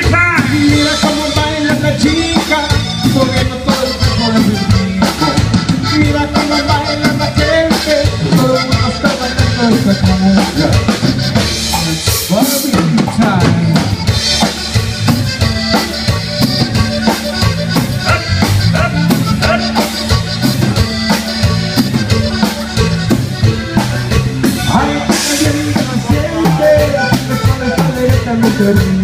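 Live Tejano band playing an instrumental stretch of a cumbia: drum kit keeping a steady dance beat with bass and electric guitar.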